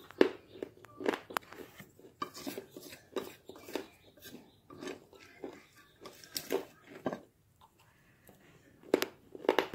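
Plastic fork scraping and clicking against a glass plate while scooping powdered and chunked dry clay, mixed with crunching and chewing of the clay. A short lull about three-quarters through, then a few louder crunches near the end.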